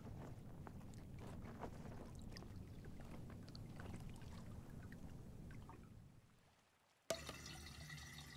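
Faint water lapping gently with small drips and trickles, fading away to near silence. Near the end a different watery sound starts suddenly.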